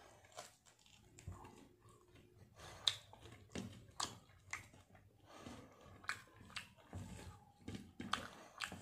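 Close-up mouth sounds of a man eating rice and fried fish by hand: chewing, with irregular wet smacks and short clicks about one or two a second, one sharper click about three seconds in.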